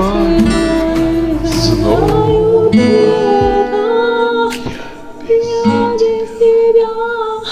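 Music: a woman singing long held notes over acoustic guitar.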